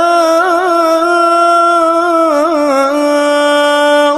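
A man chanting Quran recitation in melodic tajweed style, holding one long drawn-out vowel with wavering ornaments about half a second in and again around two and a half seconds in.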